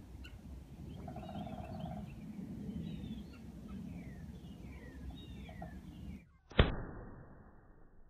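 Birds chirping over a low background rumble while a lighter heats a foil match-head cannon; about six and a half seconds in, one sharp, loud pop as the packed match heads ignite and the cannon fires.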